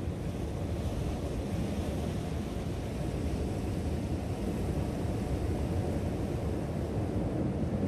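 Steady low wind rumble buffeting the microphone, over the wash of ocean surf against the rocks.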